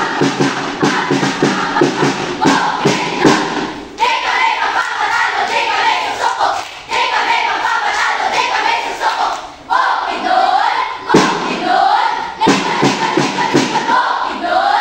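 A group of schoolchildren chanting and shouting a yell in unison. A fast run of thumps runs under the voices for the first four seconds, and several rising shouted calls follow later.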